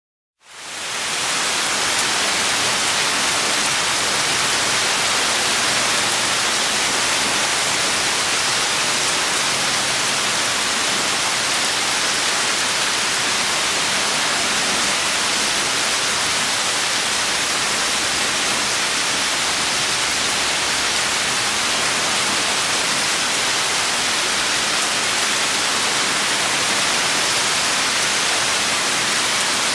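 Steady rain, an even dense hiss with no separate drops standing out, fading in within the first second.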